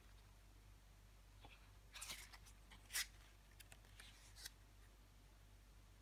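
Paper pages of a CD booklet being turned by hand: a few short rustles and flips, the sharpest about three seconds in, with small paper ticks after.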